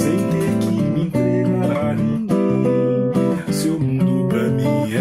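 Nylon-string classical guitar playing a chord sequence, plucked and strummed, in an instrumental passage of the song.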